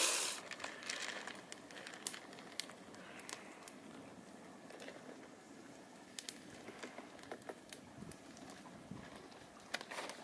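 Wood campfire crackling, with irregular sharp pops and snaps.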